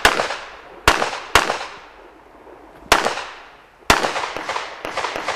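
Smith & Wesson M&P9 Pro 9 mm pistol being fired: sharp single shots and pairs with pauses between, each trailing off in echo, then several quicker, fainter shots near the end.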